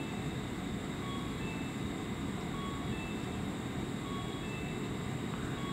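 Steady low hum and rumble of a Tobu 6050 series electric train standing at a station platform, with faint short high tones recurring every second or so.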